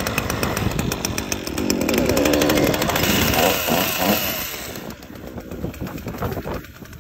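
Two-stroke chainsaw, freshly cold-started, running fast with its engine note dipping and climbing. About five seconds in it drops to a quieter, slower run.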